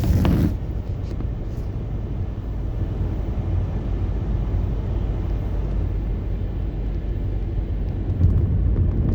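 Steady road and engine noise of a car being driven at road speed, mostly low-pitched, with a brief sharp noise right at the start.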